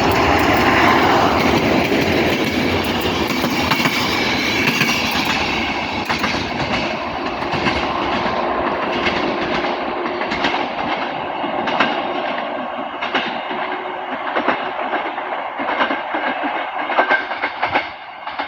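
Passenger train running past and pulling away, its wheels clicking over the rail joints. The running noise fades steadily as it recedes.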